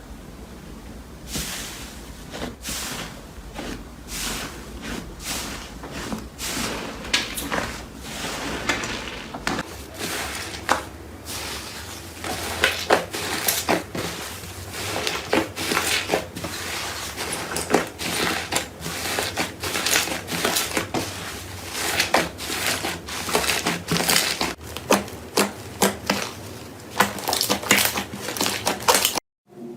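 Slime being squeezed and worked, giving a dense, irregular run of sharp clicks and crackling pops that breaks off suddenly near the end.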